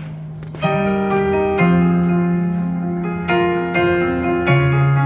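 Slow piano chords played live as a song's intro, each chord held and a new one struck about every second.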